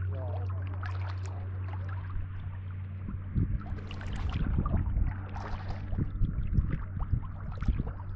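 A fishing boat on the water. A steady low hum gives way about three seconds in to irregular low rumbling, with scattered knocks and splashy noise.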